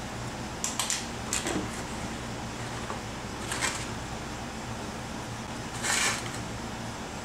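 Plastic coolant jugs being handled on a concrete floor: a few short crinkles and clicks as the foil seal comes off the antifreeze jug and the jugs are shifted, then a louder scrape of plastic about six seconds in as the full jug is picked up. A steady low hum runs underneath.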